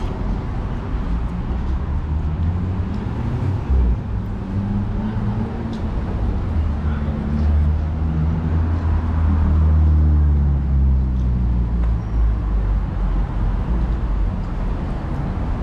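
Street traffic at a city intersection: a steady low rumble of cars, with one vehicle's engine drone growing louder around the middle and then fading.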